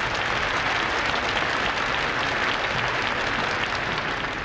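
Large crowd applauding, a steady dense clapping that starts to ease near the end, heard on an old archival recording of a papal address.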